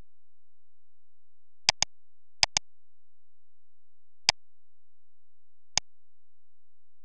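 Computer mouse button clicks: two quick double clicks, then two single clicks.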